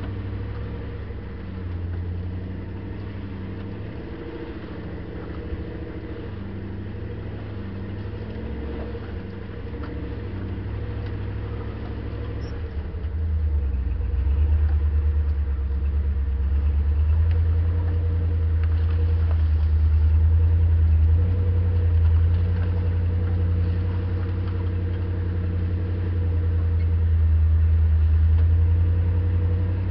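Land Rover engine running at low speed as the vehicle crawls along a rough dirt bush track, a steady low rumble that grows louder about halfway through.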